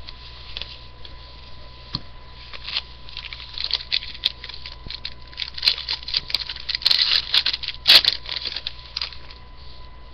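A foil trading-card pack being torn open and its cards handled: a run of crinkling and crackling, densest and loudest toward the end.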